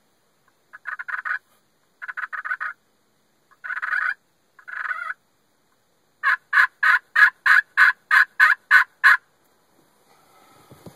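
Hen turkey yelping: four short bursts of quick notes, then a run of about eleven evenly spaced yelps, roughly four a second.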